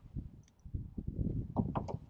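Knocks and clatter of fishing gear being handled in a canoe, with a run of several sharp knocks near the end.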